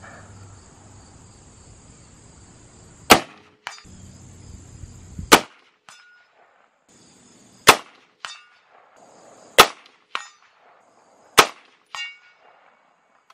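Five rifle shots from a scoped AR-pattern rifle, fired about two seconds apart. Most are followed about half a second later by the ringing clang of a bullet striking a steel target plate. A steady high insect buzz fills the gaps.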